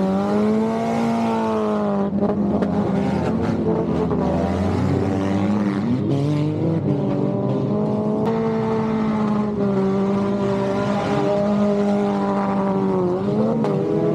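Speedway car engines running and revving together, their pitch rising and falling, with a few sharp knocks.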